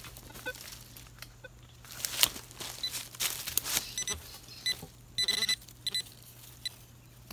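Metal detecting pinpointer beeping in short, evenly pitched bleeps as its tip is probed into leaf litter and soil, with one longer tone about five seconds in. The beeping signals metal close to the tip. Rustling and scraping of dry leaves and dirt come before it.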